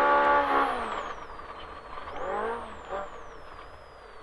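Polaris RZR Pro R's four-cylinder engine held at steady high revs. About half a second in the revs fall away as the throttle closes. Two short rising-and-falling throttle bursts follow.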